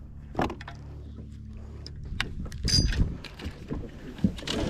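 Steady low hum of a boat motor, with several irregular knocks and clunks of gear being handled aboard the boat.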